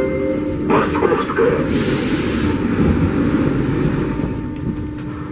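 Metro train car running through a tunnel: a steady low rumble of wheels and traction motors, with a short hiss about two seconds in.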